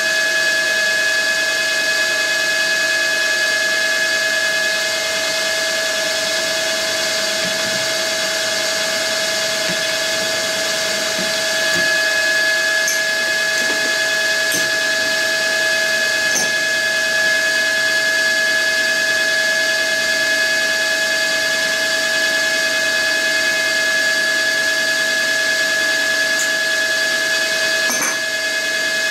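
Milling machine spindle running at high speed with a steady high-pitched gear and motor whine while a 3.2 mm twist drill bores bolt holes in an aluminium casting. A few faint clicks can be heard over it.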